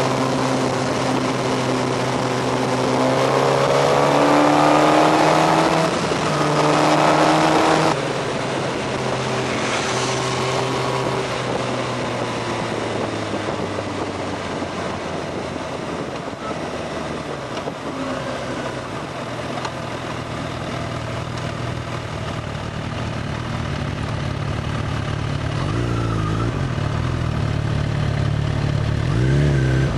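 Suzuki GSX-R 1000 inline-four motorcycle engine heard from the rider's position, its note climbing steadily as it accelerates for the first several seconds, then dropping suddenly to a lower, steadier run with wind rush. Near the end the revs rise and fall briefly a couple of times.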